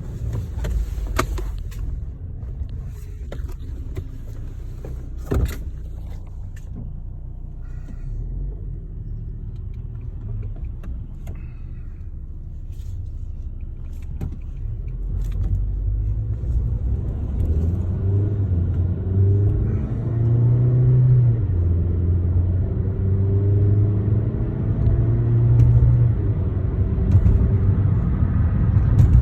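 2013 Chevrolet Sonic heard from inside the cabin as it drives off and picks up speed. A few sharp clicks come in the first few seconds. From about halfway, the engine grows louder, its note climbing and dropping back several times.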